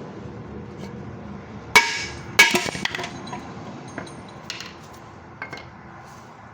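Two sharp metallic knocks with a ringing tail about two seconds in, then a few lighter clinks and ticks: the Nissan CD009 transmission's bell housing casting being struck and worked loose from its gasket-maker seal.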